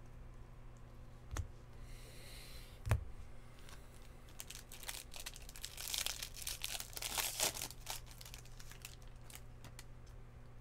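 Baseball card pack wrapper being torn open and crinkled by hand, a crackling run in the middle. Two sharp taps come before it, about a second and a half apart.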